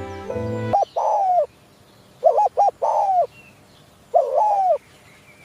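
Spotted dove cooing: three phrases, each one or two short quick notes running into a longer falling coo, with pauses between. Background music cuts off abruptly about three-quarters of a second in, just before the first call.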